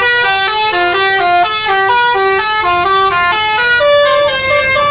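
Tour bus's basuri telolet horn, a multi-trumpet air horn, playing a fast melody of short stepped notes that settles into longer held notes near the end.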